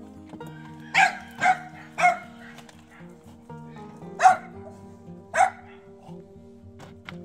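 A dog barking: three sharp barks about half a second apart, then two more about a second apart, over background music.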